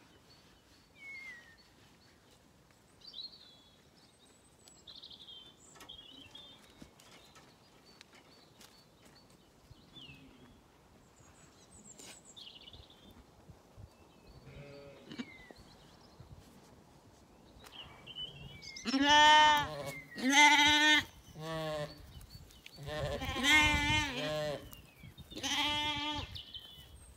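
Zwartbles lambs bleating: a run of loud, wavering bleats, each about a second long, starting about two-thirds of the way in.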